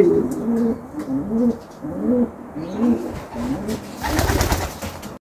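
Racing pigeons cooing in their loft: a run of low coos, each rising and falling. About four seconds in, a short noisy burst cuts across them.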